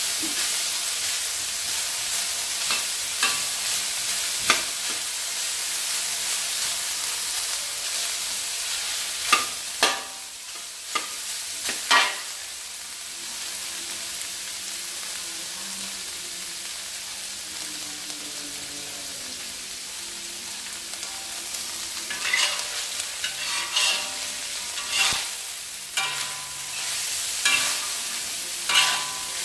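Minced beef and pork frying in a wok with a steady sizzle, stirred with a metal slotted spatula that scrapes and clanks against the wok now and then. There are a few strokes in the first half and a busy run of stirring near the end, and only the sizzle in between.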